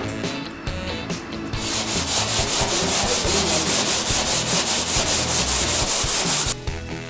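Sanding on the steel roof of an old car, a loud hissing rasp in quick, even strokes that starts about a second and a half in and stops suddenly near the end.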